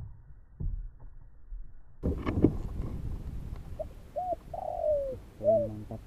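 A sharp knock about two seconds in, then a spotted dove cooing: a few short rising-and-falling notes and one longer falling note.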